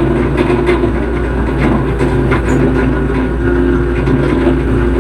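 Hitachi EX110 excavator's diesel engine running steadily as it works, with scattered short knocks and clatter over the engine sound.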